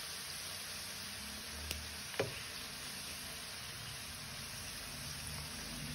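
Somas pastries deep-frying in oil on a low flame, a steady gentle sizzle. A light knock about two seconds in, with a fainter tick just before it.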